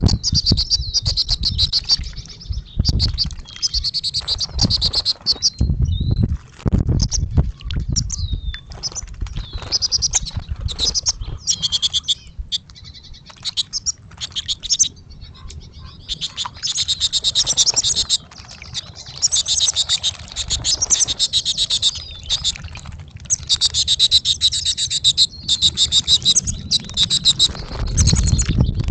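Goldfinches twittering, rapid runs of high chirps coming in bursts throughout, with low rumbles now and then, near the start, about a third of the way in, and near the end.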